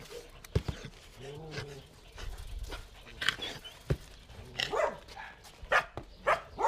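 Several puppies whining and yapping at a chain-link fence, their short yelps coming thicker toward the end. Two sharp knocks of paws against the wire mesh come in among the calls.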